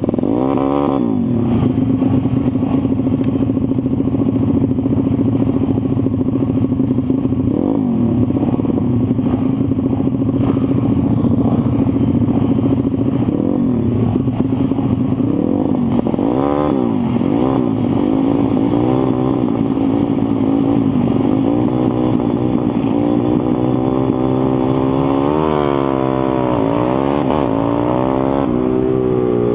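A 140cc pitbike's single-cylinder four-stroke engine heard from on the bike while racing. It runs at high revs on the straights, and its note drops and climbs back up four times, about a second in, around 8 and 16 seconds, and more slowly near the end, as the rider slows for corners and accelerates out again.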